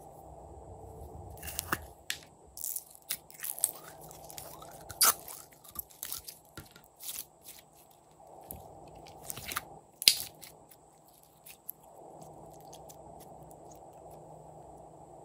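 Glitter slime crackling and popping as hands squeeze and press it, a dense run of sharp clicks and snaps. The two loudest pops come about five and ten seconds in, and the crackling stops about two seconds before the end.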